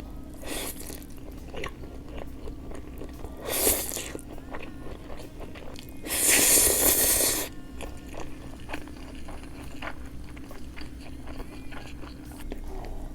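Close-miked eating of spicy cold noodles and thin-sliced pork belly: steady chewing and biting with many small wet clicks. About six seconds in comes a louder noisy burst lasting just over a second.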